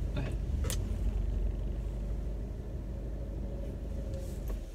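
Car engine and tyre rumble heard from inside the cabin while parking at low speed, with a couple of brief clicks in the first second. The low rumble fades slightly and then cuts off abruptly right at the end as the engine is switched off.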